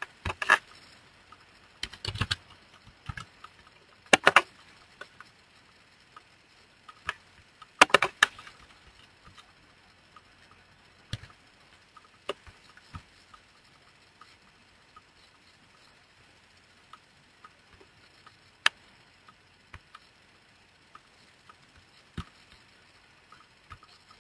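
Computer keyboard keystrokes and mouse clicks: a few short bursts of key taps in the first eight seconds or so, then single clicks spaced several seconds apart.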